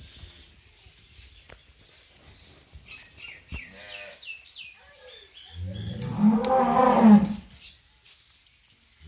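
A long, loud, low animal call lasting about two seconds, starting about five and a half seconds in, preceded by a series of short high bird chirps.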